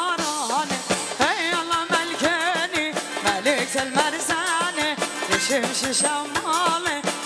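Middle Eastern folk dance music: a wavering, ornamented melody over a fast, steady drum beat.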